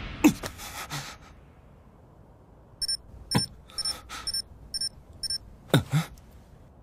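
Electronic sound effect: a falling swoop, then a run of about seven short, high beeps at an uneven pace with two deep falling swoops among them.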